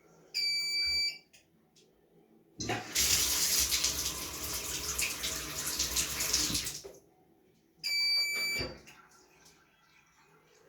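Washing machine beeping once, then about four seconds of rushing water, as from the inlet valve filling the drum, then beeping once more.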